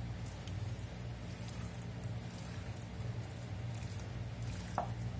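Chicken pieces being mixed with an oily marinade, soft wet squishes over a steady low hum, with one sharper click near the end.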